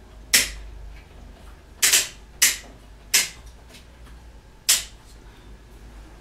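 Five sharp clacks at irregular intervals, hard parts of the Body Crunch Evolution exercise machine knocking as it is handled and set up for the cycling warm-up.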